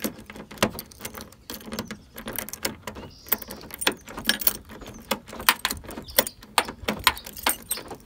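Keys on a ring jangling, with many quick irregular metal clicks, as a car key is worked back and forth in a stiff door lock freshly sprayed with WD-40 to loosen the dirt inside.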